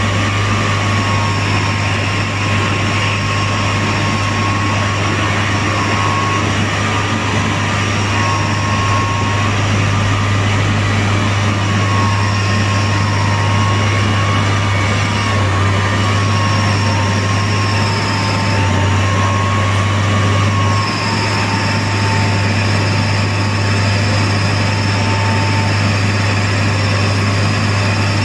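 Track-laying machine running steadily: a loud low engine hum with a thin whine above it that wavers slightly in pitch.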